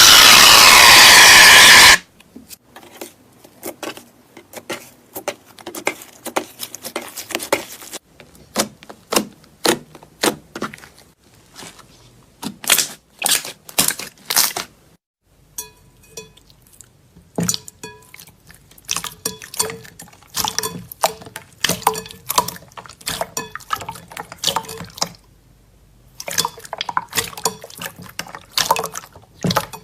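Slime being squished and worked by hand: a long run of irregular sticky wet clicks and pops. It opens with a loud rushing hiss that cuts off about two seconds in.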